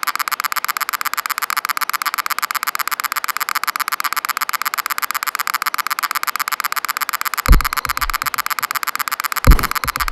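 Electronic music made from processed field recordings: a rapid, steady buzzing pulse, joined near the end by two deep bass thumps about two seconds apart.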